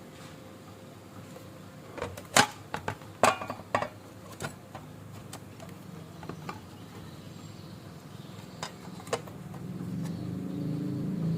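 Sharp clicks and knocks of small hard parts being handled, in a quick cluster a couple of seconds in and twice more later, over a quiet background; a low rumble swells near the end.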